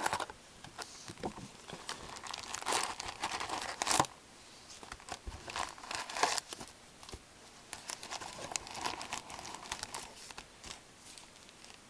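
Foil-wrapped hockey card packs crinkling and rustling as a cardboard hobby box is opened and the packs are pulled out by hand, with irregular crackles and a sharp snap about four seconds in.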